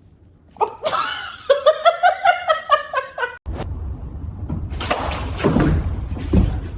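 A person laughing hard in a rapid run of short bursts for about three seconds. The laughter cuts off abruptly into a steady low background rumble.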